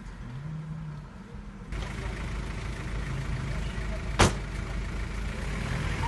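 A vehicle engine running at a steady low hum with street noise, and one sharp click about four seconds in.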